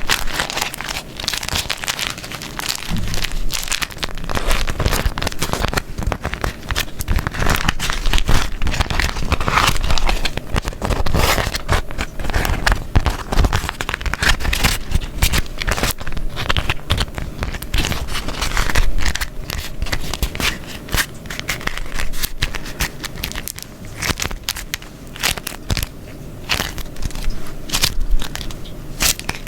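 Beeswax paper being crumpled and folded by hand close up, a dense, irregular run of sticky crackles.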